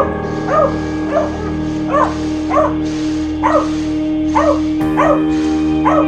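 A beagle barking over and over, about one short bark every three-quarters of a second, at a radio-controlled car. Background music with held chords plays underneath.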